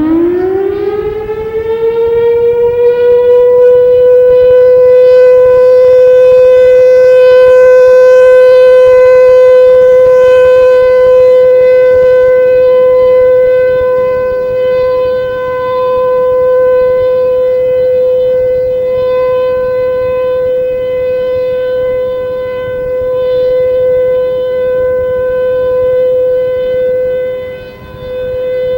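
Federal Signal Thunderbolt 1000 civil defense siren winding up to full pitch in the first couple of seconds, then holding one steady tone, the alert signal of a siren test. Its loudness swells and dips slowly.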